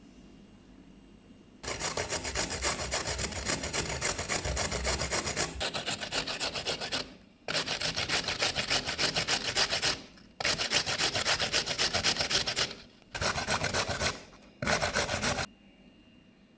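Rapid scraping strokes on a raw carrot, about three or four a second, in five runs of a few seconds each with short pauses between.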